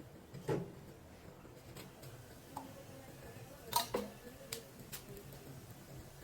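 Kitchen utensils knocking and clicking lightly a few times during cooking, the loudest a quick pair of knocks near the middle.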